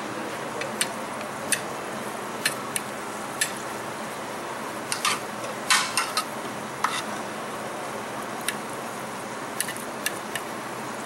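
Irregular clinks and taps of a spoon against a metal ring mold and plate as risotto is packed into the mold, over a steady background hiss.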